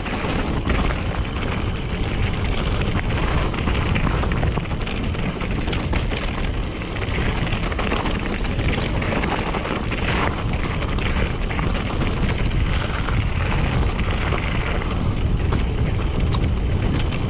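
Mountain bike riding fast down a dirt trail: steady wind noise on the microphone over the low rumble of tyres rolling on dirt, with frequent small clicks and rattles.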